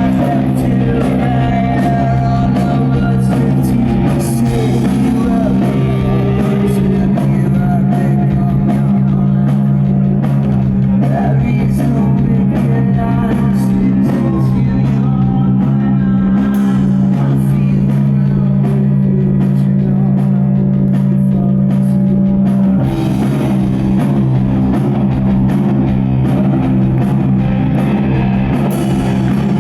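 Rock band playing live at full volume: distorted electric guitars, bass and a drum kit driving a steady, dense groove.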